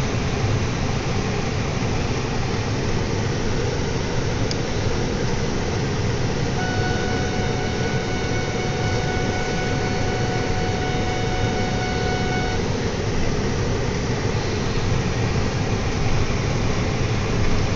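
Steady road and engine noise inside the cabin of a moving car. A steady high tone sounds for about six seconds midway.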